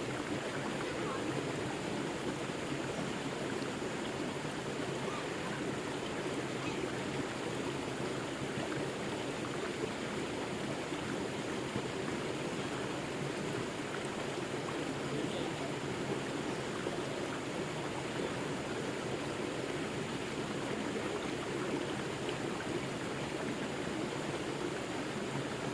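River water rushing and gurgling over rocks, a steady unbroken rush.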